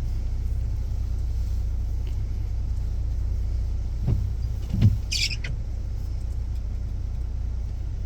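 Van engine idling, a steady low rumble heard from inside the cabin, with two dull thumps about four and five seconds in and a brief high squeak just after.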